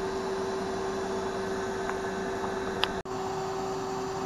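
A steady hum over an even hiss, broken by a brief dropout about three seconds in.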